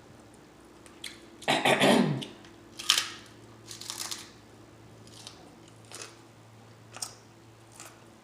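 Close-miked eating sounds from a person chewing tacos: a loud throaty sound falling in pitch about a second and a half in, then a crisp crunch, then wet lip smacks and chewing clicks about once a second.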